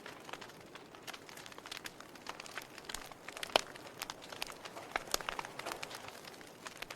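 Wood fire burning in a fireplace: a soft steady hiss with irregular sharp crackles and pops, one louder pop about halfway through.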